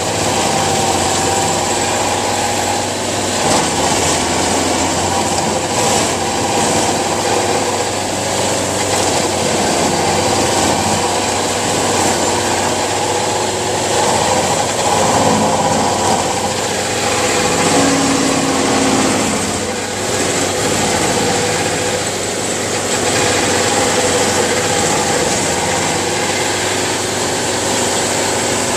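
A small gasoline engine on tree-work equipment running steadily for the whole stretch, its pitch shifting a little now and then.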